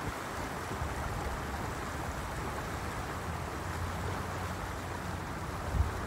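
Bitterroot River flowing over a cobble riffle: a steady rush of water. A low wind rumble on the microphone grows stronger near the end.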